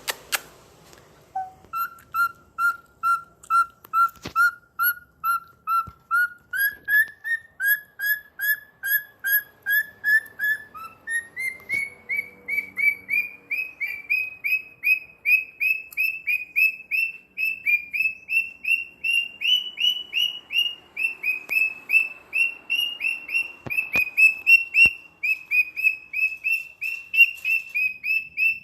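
Cockatiel singing a long run of short, repeated whistled notes, about two to three a second, the pitch stepping up twice along the way.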